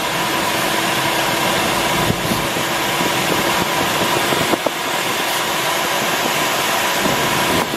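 Steady rush of airflow over an engineless Duo Discus glider's canopy, heard inside the cockpit in flight, with a thin steady tone running through it.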